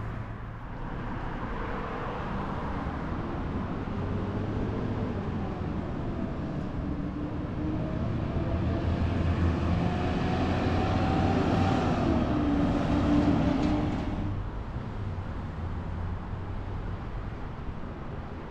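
An engine running nearby with a low hum, growing louder toward the middle and then dropping away sharply about fourteen seconds in.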